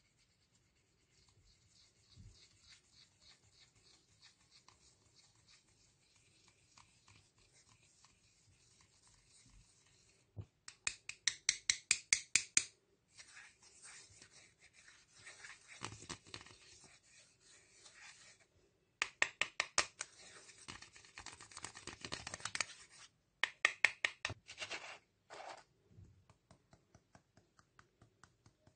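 Pressed face powder in a compact being scratched and crumbled with a plastic stick: quick repeated scraping strokes, about five a second, faint at first and loudest in two runs through the middle.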